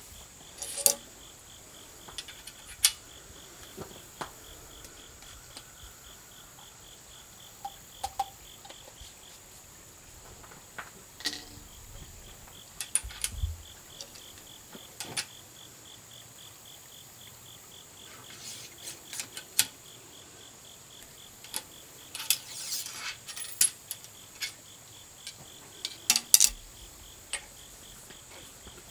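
Scattered sharp clicks and knocks of a metal ramrod being worked down the barrel of a .45 calibre muzzle loader, seating a bullet. A steady insect chorus of crickets chirrs throughout, one part of it a fast pulsing trill.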